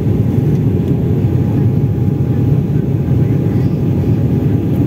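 Steady rumble of engines and airflow heard inside a passenger airliner's cabin during the climb after takeoff, with a faint steady whine above it.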